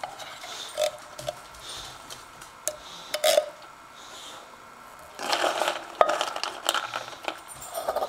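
Plastic spoon scooping wet canned dog food and scraping it into a metal bowl: a few scattered clicks and wet squelches, then denser scraping and knocking from about five seconds in.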